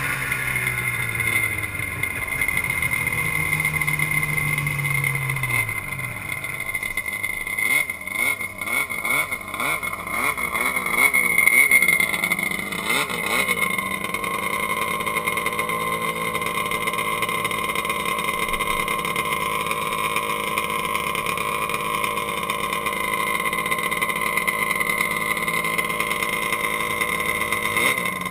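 Arctic Cat snowmobile engine running with the sled standing still: a series of quick revs up and down in the middle, then a steady idle.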